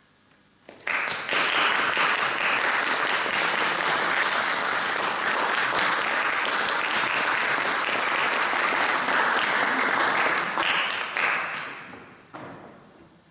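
Audience applauding. The applause starts suddenly about a second in and dies away near the end.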